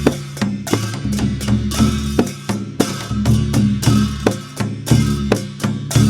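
Dhime, the Newar double-headed drum, played in a steady rhythm of sharp strokes, about two to three a second, over the deep ringing tone of its bass head.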